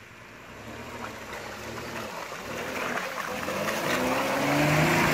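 Off-road 4x4 vehicle's engine growing steadily louder, its engine note coming to the fore and rising in pitch over the last couple of seconds.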